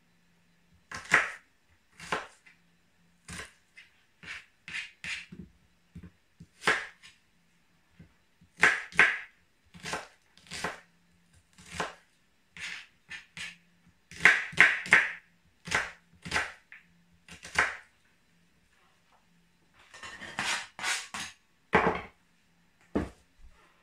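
Kitchen knife chopping vegetables on a wooden cutting board: irregular single cuts and quick runs of two or three strikes. Near the end the pieces are scraped off the board into a glass bowl, with a clatter and a knock. A faint steady hum lies underneath.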